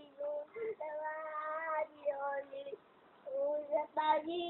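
A young girl singing in long held notes, with a short pause a little after halfway.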